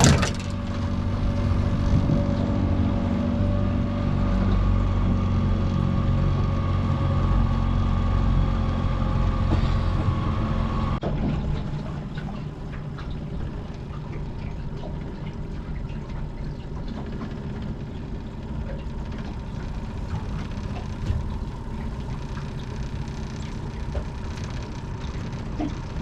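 Boat motor running steadily at trolling speed, with water and wind noise. About eleven seconds in, the clear engine tone cuts off abruptly and a quieter, rougher hum carries on.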